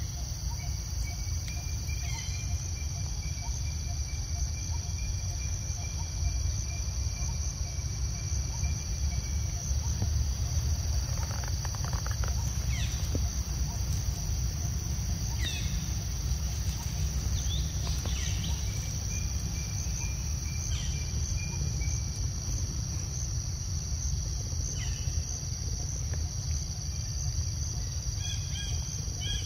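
Forest ambience: a steady high insect drone of cicadas or crickets, with a few short bird chirps that grow more frequent near the end, over a low steady rumble.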